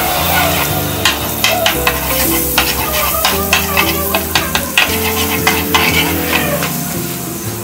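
Wooden spatula scraping and stirring melting butter around an aluminium wok, the fat sizzling steadily under a run of quick scrapes against the metal.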